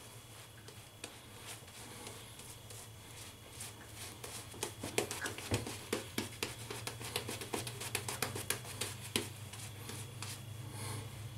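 Lathered shaving brush worked over a week's stubble. A rapid run of short bristle strokes fills the middle few seconds, over a faint steady low hum.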